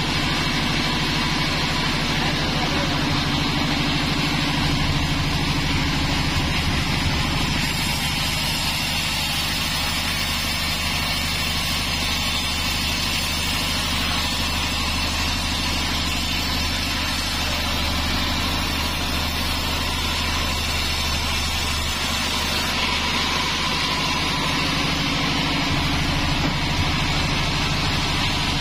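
A 36-inch band sawmill running steadily, its blade sawing lengthwise through a teak log. A fine hiss rides over the machine's hum for much of the middle of the cut.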